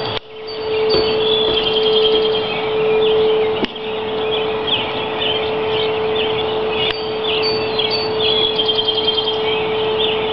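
A steady, unchanging single-pitched hum that the recordist could not identify, with birds chirping over it and a background hiss.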